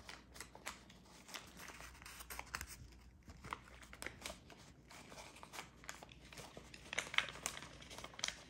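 Faint, irregular crinkling and clicking, busiest and loudest about seven seconds in.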